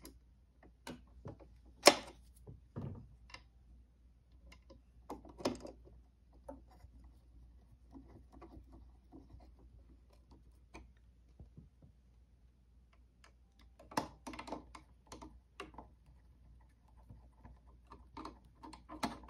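Small screwdriver driving screws back into a sewing machine's plastic top cover: irregular clicks, taps and scrapes of metal on the screw heads and the lid. The loudest click comes about two seconds in, with clusters of quicker clicking near the middle and near the end.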